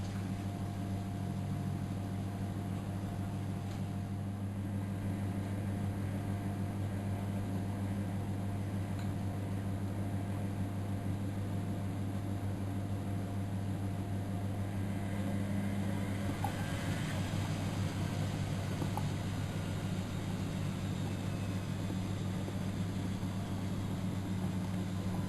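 Miele Novotronic W914 washing machine running a boil-wash cycle: a steady mechanical hum, with some higher rushing noise added about two-thirds of the way through.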